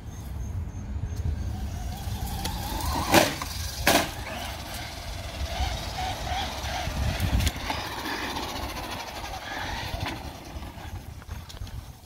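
Traxxas Slash 4X4 Ultimate RC truck's brushless electric motor whining as it is driven, its pitch wavering with the throttle, with two loud sharp knocks a little after three and four seconds in.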